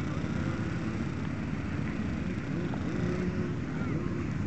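Several motocross bike engines idling and revving, their pitch rising and falling, over a steady low rumble.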